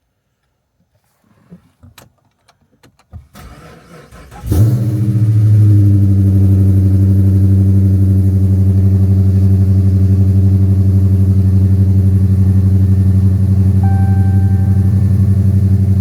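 Dodge Magnum's engine cranking briefly and catching on a cold start about four and a half seconds in, then running at a steady idle. A few light clicks and knocks come before it, and a short electronic beep sounds near the end.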